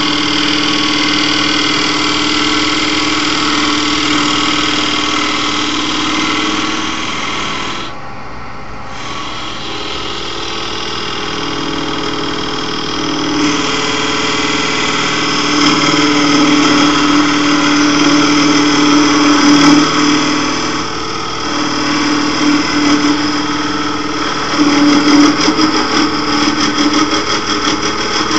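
Wood lathe running, with a turning tool scraping against the spinning piece of wood: a steady motor hum under a loud hiss of cutting. The sound drops briefly about eight seconds in, then picks up again and swells unevenly as the tool bites.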